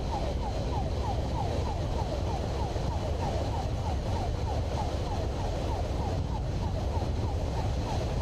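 Police siren in a fast yelp, about three quick falling sweeps a second, over the steady low rumble of the motorcycle riding at speed.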